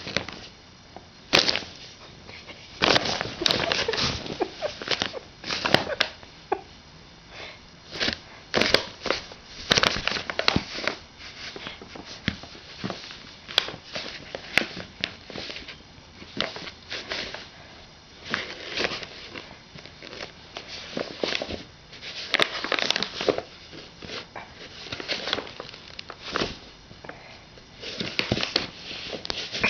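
Paper bag crinkling and rustling in irregular bursts as a cat scrabbles inside it.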